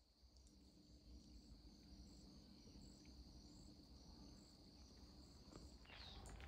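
Faint insect chorus of late summer: one steady high trill with fainter chirps above it, over a low background rumble. Footsteps on the trail start near the end.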